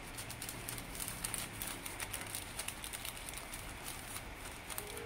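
Greaseproof paper crinkling and rustling as it is folded and creased into an envelope around a piece of chicken, with irregular light taps as fingers press it flat on a wooden table.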